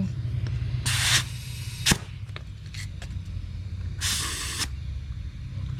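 Two short hisses of air at a pneumatic cart tire's valve as the under-inflated tire is aired up and checked, with a sharp click between them. A steady low hum runs underneath.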